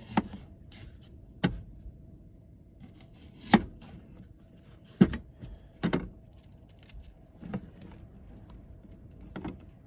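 A knife cutting an onion on a cutting board: about seven sharp chops, irregularly spaced a second or two apart, over a faint steady hum.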